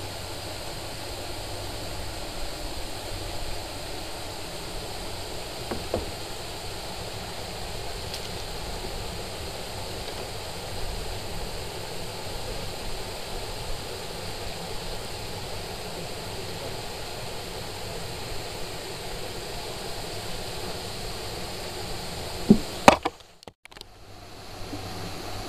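Steady rushing water noise, with a few faint knocks. Two sharp knocks sound near the end, then the sound drops out for about a second.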